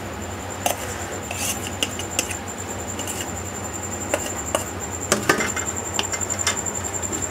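A metal fork clicking and scraping against a plate at irregular intervals while spreading out boiled vermicelli, over a steady low hum and a faint high whine.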